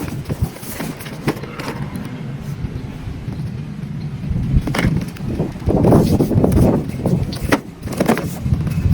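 Toy RC excavator working: an uneven mechanical rumble with scattered knocks and scrapes, growing louder around the middle.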